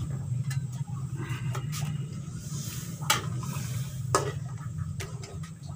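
A long metal spatula stirring chicken curry in coconut milk in a nonstick frying pan, scraping the pan and knocking against it twice, about three and four seconds in, while the curry simmers. A steady low hum runs underneath.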